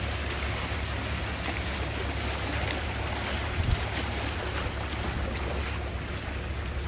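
Calm sea waves washing steadily, with wind rumbling on the microphone and one brief buffet about halfway through.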